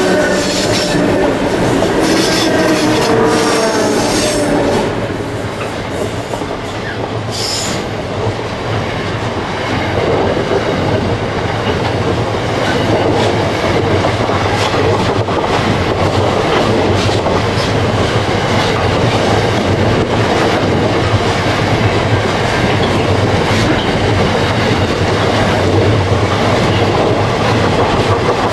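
Clyde/EMD diesel-electric locomotives at the head of a loaded grain train pass by in the first few seconds, their engine note dropping in pitch as they go. A long string of loaded grain hopper wagons then rolls past, wheels clicking over the rail joints, with a brief high wheel squeal about seven seconds in.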